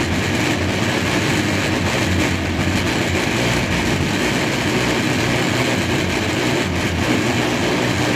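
Countertop blender motor running steadily at high speed, churning a thick mix of nuts, oats, milk and water in the jar.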